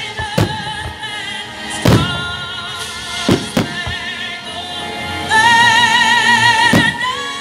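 Firework shells bursting in the air about five times, the loudest about two seconds in, over loud music with a held, wavering singing voice that swells near the end.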